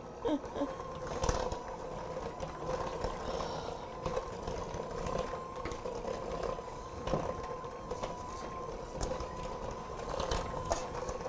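Electric mixer running at low speed, beating cream cheese, butter and powdered sugar into frosting: a steady motor whine with scattered clicks, the pitch nudging up slightly near the end.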